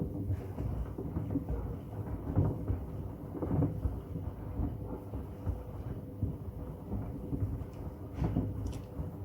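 Hoover washing machine running loaded with pieces of wood, which knock and bang irregularly against the drum over a steady motor hum.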